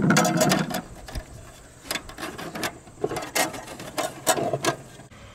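Capacitors and wiring being pushed back into place in the sheet-metal control box of an RV rooftop air conditioner. A scraping, shuffling sound in the first second, then a handful of separate clicks and knocks.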